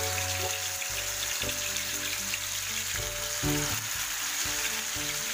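Hot oil sizzling steadily in a frying pan as marinated chicken drumsticks fry in it and more pieces are laid in.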